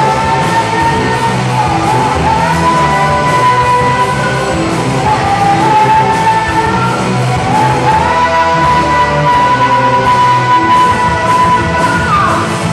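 Live rock band playing, with a singer holding long high notes over guitars and drums; the last held note slides down near the end.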